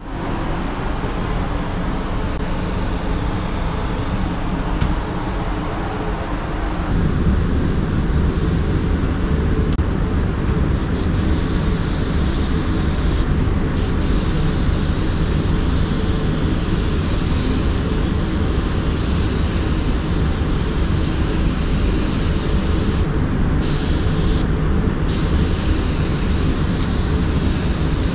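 Compressed-air paint spray gun with a gravity-feed cup hissing as it sprays paint onto a car door. The hiss starts about a third of the way in and cuts off briefly three times as the trigger is let go. A steady low rumble runs underneath and grows louder about a quarter of the way in.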